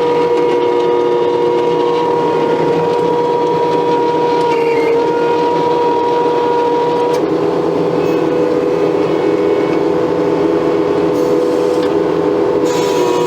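Case TV450 skid steer running its hydraulic stump grinder attachment, grinding out a stump: a loud, steady machine drone with a high whine held at an even pitch, dipping slightly now and then under load.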